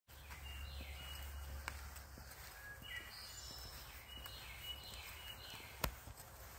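Songbirds singing in woodland: groups of short, high whistled notes and chirps throughout, over a low rumble. A single sharp click about six seconds in is the loudest sound.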